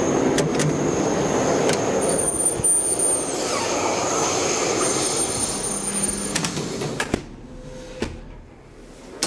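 Busy railway-platform noise with a faint high steady tone, cut off abruptly about seven seconds in as the hydraulic elevator's manual swing door shuts with a couple of sharp clicks. A quieter cab follows, with another click or knock about a second later.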